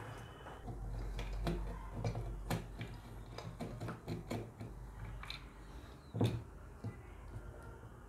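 Scattered light clicks and taps of a screwdriver and fingers working a wire terminal screw inside a plastic instant water-heater tap, the loudest knock about six seconds in.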